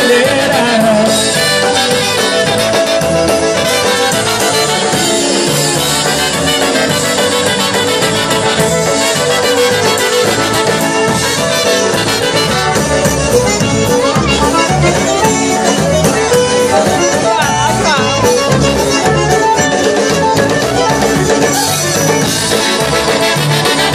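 Live polka band playing an instrumental passage: two trumpets, fiddle and accordion over a steady bass beat.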